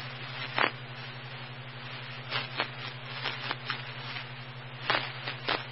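Dispatch radio scanner feed idling between transmissions: a steady hiss over a low hum, with brief clicks scattered through it.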